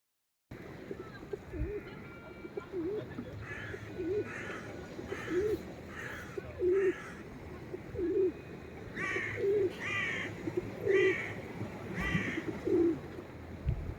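Birds calling: a low cooing call repeated about once a second, with a series of higher gull calls joining in a few seconds in, loudest near the end.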